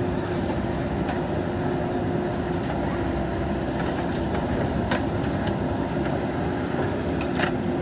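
JCB 3DX backhoe loader's diesel engine running steadily under load while it works, with a few sharp metallic clanks from the machine.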